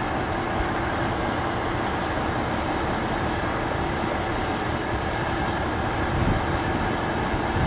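A steady, unchanging mechanical rumble with a faint constant hum.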